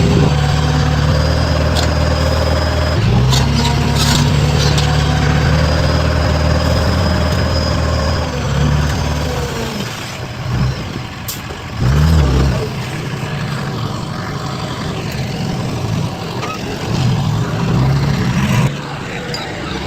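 Heavy diesel machinery engine running with a deep, steady note, briefly dipping about three seconds in. Around halfway the engine note drops away into a noisy rumble, with a short surge about twelve seconds in.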